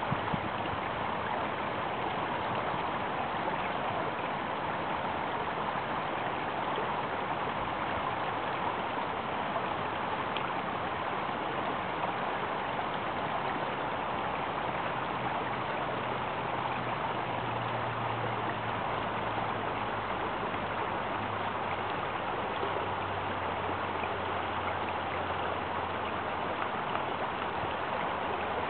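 Shallow rocky creek running over and between stones: a steady, even rush of flowing water.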